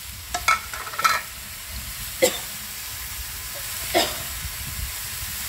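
Water spinach frying in a hot wok: a steady sizzle, broken by several short, sharp clinks.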